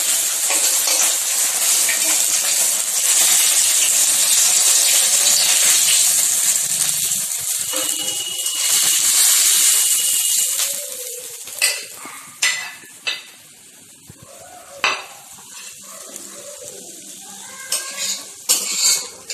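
Hot oil sizzling in a steel kadai as fried lotte (Bombay duck) fish pieces come out of the pan, the sizzle dying down after about ten seconds. Then a few sharp clinks of a spatula against the wok and plate.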